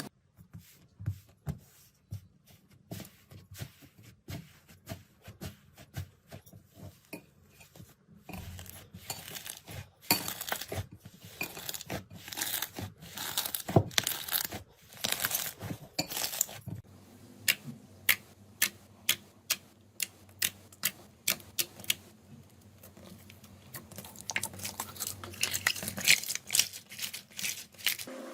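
Slime being squeezed and pressed, giving a run of sticky pops, clicks and crackles, with spaced-out sharp pops for a stretch after the middle.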